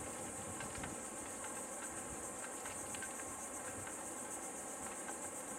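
Steady, high-pitched chorus of insects buzzing in the surrounding vegetation, with a few faint ticks scattered through it.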